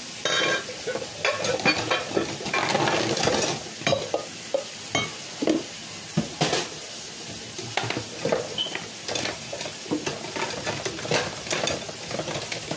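Dishes being washed by hand at a kitchen sink: a run of clinks and knocks of cups and dishes mixed with scrubbing and rinsing noise.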